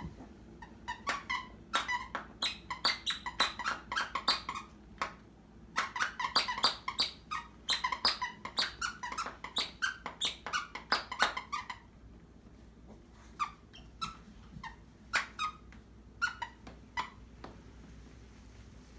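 Squeaker in a pink plush Care Bear toy squeaking over and over as a small dog bites and chews it: two long runs of rapid squeaks, then a few scattered single squeaks after a pause.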